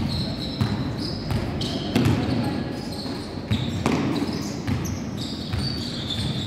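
Basketball bouncing on a hardwood court at irregular intervals, with short high squeaks of sneakers on the floor.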